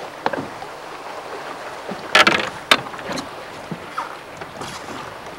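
Steady wind and water noise around an open fishing boat, with a short, loud scuffling burst about two seconds in and a sharp knock just after it.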